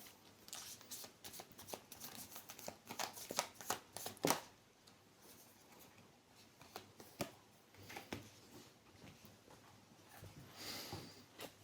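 Tarot cards being shuffled and handled: a run of quick, faint clicks for the first four seconds or so, then scattered clicks and a short rustle near the end.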